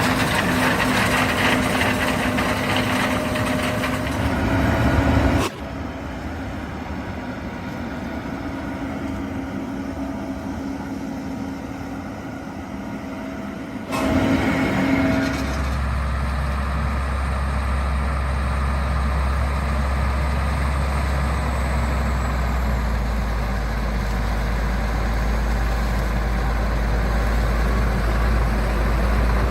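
John Deere S680 combine harvester running in corn: a steady engine and machinery drone. It drops abruptly to a quieter drone about five seconds in and jumps back louder about fourteen seconds in. Through the second half a deep steady hum dominates.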